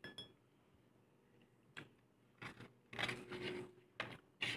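Soft eating sounds: a handful of short mouth smacks and scrapes as grilled street food is chewed and picked at on a plate.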